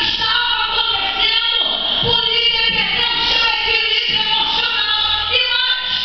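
A woman singing into a hand-held microphone through a PA system, in long held notes.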